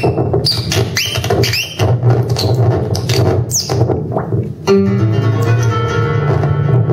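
Live experimental electronic music played on synthesizers. A steady low drone runs under dense glitchy noise hits and sweeping squeals; about two-thirds of the way in, these give way suddenly to a sustained chord of held tones.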